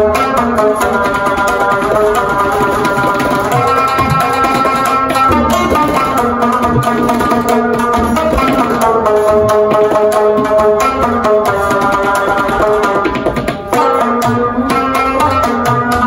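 Background instrumental music: a melody in sustained notes over a drum rhythm.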